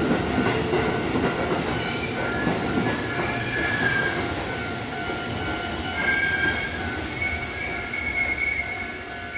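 Running noise of a Keisei 3050-series electric train heard from inside the carriage, with steady high-pitched wheel squeal held over the rumble. It grows somewhat quieter near the end.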